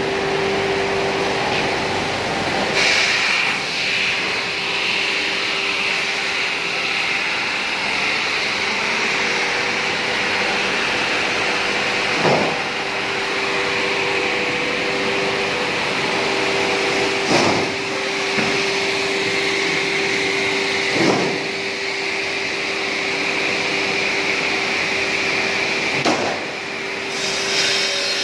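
Two-side brush roller sanding machine running on plywood: a steady drone with a constant hum. Five brief knocks are spread unevenly through it.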